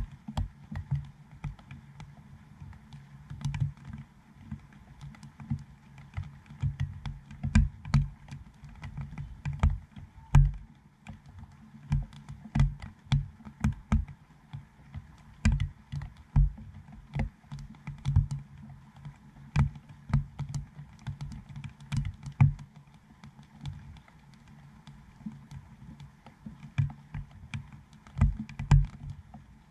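Raindrops striking the dome port of a GoPro Hero7 housing: irregular sharp taps, each with a low thud, several a second at times and sparser for a few seconds in the second half. A faint steady hiss of light rain lies beneath.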